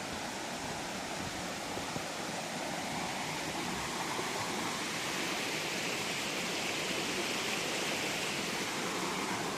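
Rushing water of a mountain waterfall or stream, a steady, even roar of white water.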